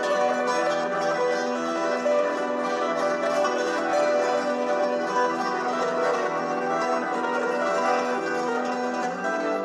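Background music with a plucked string instrument playing a steady melody.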